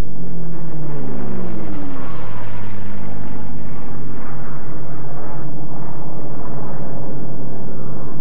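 P-51 Mustang's V-12 engine running in flight, its pitch falling over the first two seconds and then holding steady.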